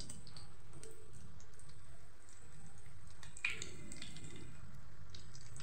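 Breaded chicken-and-potato cutlets shallow-frying in hot oil in a pan: a steady sizzle with small crackles, and one sharper crackle about three and a half seconds in.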